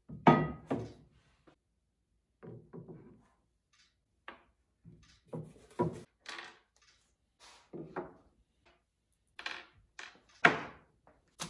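Metal machine parts and cardboard boxes being set down and handled on a wooden tabletop: a string of separate thunks and knocks with short silences between. The loudest come just after the start and about a second before the end.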